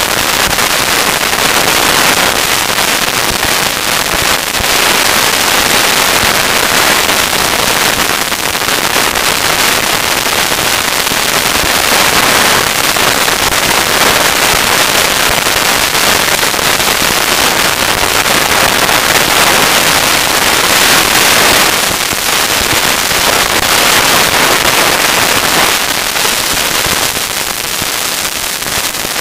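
Mountain bike riding fast along a dirt forest trail: a continuous, dense crackling rattle and rush as the tyres run over the dirt and leaves and the bike shakes.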